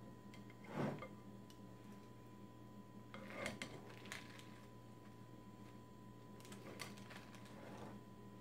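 Salad being tossed with tongs in a glass bowl: faint scattered clicks and rustles of the tongs against the glass and leaves, with a louder knock about a second in and a few more around three and a half to four seconds in.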